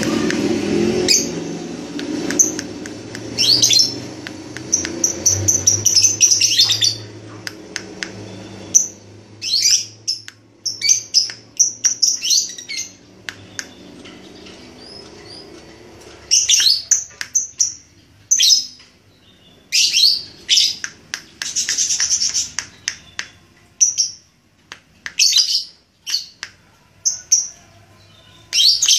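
Lovebird chattering in rapid, high-pitched bursts of quickly repeated chirps, each burst a second or two long with short pauses between: practice of 'ngekek', the drawn-out chatter that lovebirds are trained to deliver in song contests.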